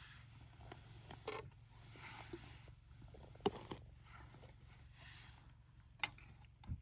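Faint creaking with a few sharp clicks scattered through, ending in a soft low thump, over a low steady hum.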